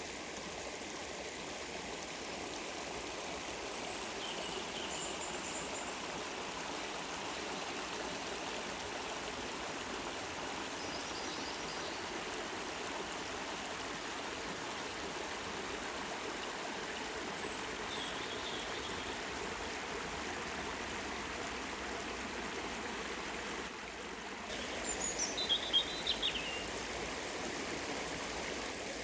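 Stream water flowing steadily, with birds chirping now and then and a louder run of chirps near the end.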